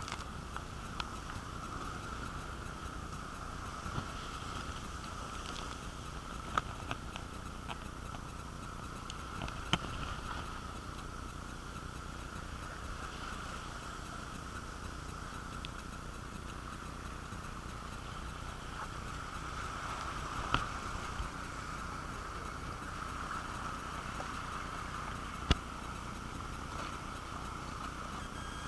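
Water rushing down a water slide under an inflatable ride tube: a steady watery hiss with a constant higher-pitched ring in it. A few sharp clicks or knocks come through, about six in all.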